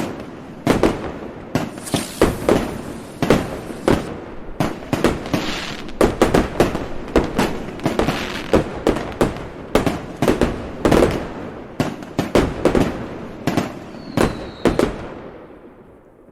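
Fireworks going off: a rapid, irregular string of sharp bangs and booms with crackling between them, and a brief falling whistle near the end. The bangs then stop and the echoing rumble fades away.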